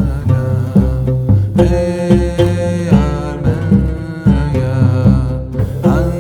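Music with a steady, pulsing beat under a sliding melody line.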